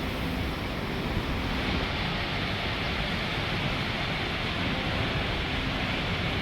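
Whangarei Falls: the steady rush of a large waterfall, an even, unbroken noise of falling water.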